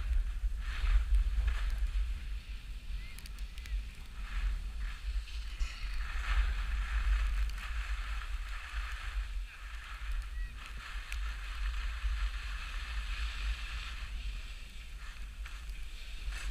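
Wind buffeting a GoPro's microphone as the wearer skis downhill, with the hiss of skis on snow swelling and fading from turn to turn.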